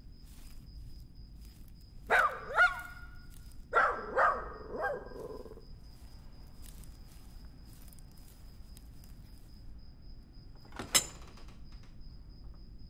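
A dog barks: two barks about two seconds in, then three more a second later, each dropping in pitch. Near the end a single sharp click, the loudest sound.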